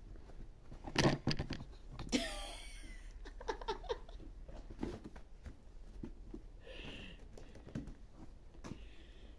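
Small knocks and soft rustling as a kitten moves about on a fabric cushion, the loudest knocks about a second in, with a short wavering high-pitched squeal from about two seconds in.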